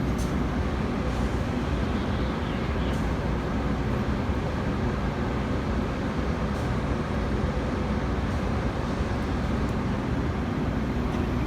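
Steady low rumble of Metra commuter trains standing at a station platform.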